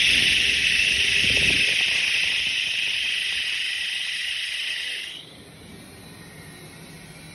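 SHR-50L high-speed mixer running, its impeller spinning in the 50-litre bowl with a loud high hiss over a low rumble. The rumble stops about a second and a half in; the hiss fades slowly and then drops away suddenly about five seconds in, leaving a faint hum.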